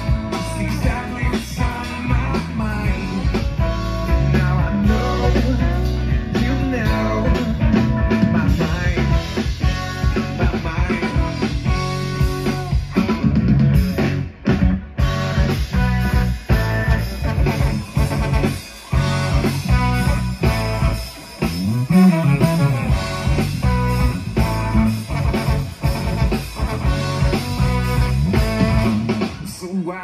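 A live band playing a rock song through a PA: electric guitar, bass guitar and drum kit.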